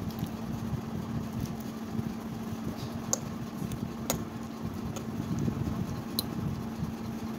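Steady low rumble with a constant hum, with a few sharp clicks of a steel fork against a ceramic plate as ripe bananas are mashed.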